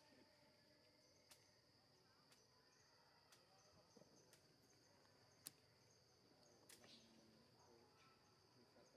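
Faint forest ambience: a steady, high-pitched insect drone, with a few short sharp clicks scattered through it, the loudest about five and a half seconds in.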